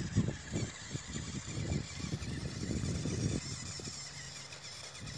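RC monster truck driving over loose wood chips and churned soil: a whining motor with irregular crunching and rumbling from the tyres, easing off a little after about three seconds.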